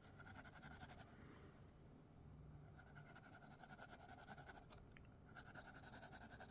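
Faint scratching of colouring strokes on paper, barely above room tone.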